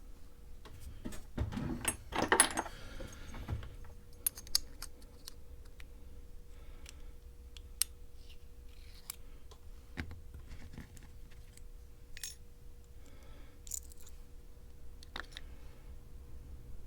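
Small metal lock parts clicking and rattling as a Mul-T-Lock 7x7 dimple lock core is taken apart and its pins handled. A brief jingling clatter comes about two seconds in, followed by scattered light single clicks.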